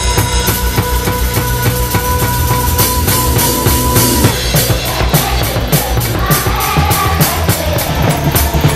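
Acoustic drum kit played fast and busy: dense bass drum, snare and tom strokes with cymbals. It is played along with backing music, which carries a held tone that drops away about four seconds in.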